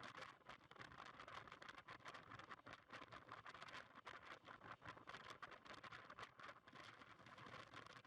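Near silence: a faint, even crackling hiss.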